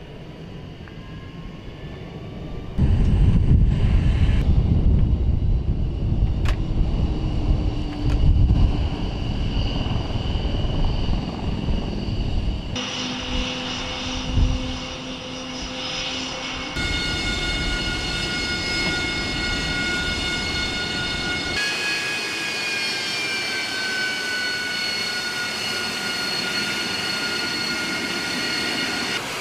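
AV-8B Harrier II jet engine (Rolls-Royce Pegasus turbofan) running on the ground: first a loud low rumble, then a steady high whine of several tones, which slides slowly down in pitch near the end.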